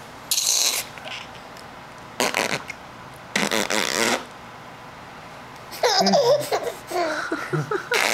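An adult blowing raspberries, three short spitting bursts, then a baby laughing and squealing from about six seconds in.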